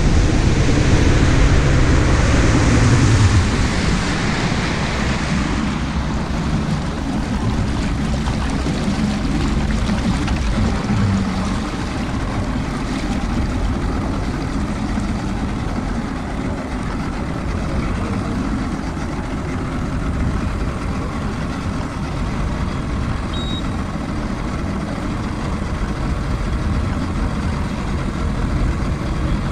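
A boat's outboard motor running, easing off about three to four seconds in and then idling steadily.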